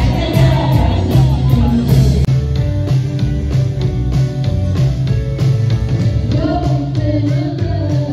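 Live pop-rock band music filmed from the crowd: a woman singing into a microphone over keyboard and band, with a heavy steady beat in the low end.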